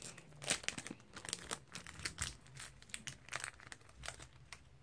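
Foil wrapper of a Pokémon trading-card booster pack crinkling and tearing in the hands as the pack is opened, an irregular run of small crackles.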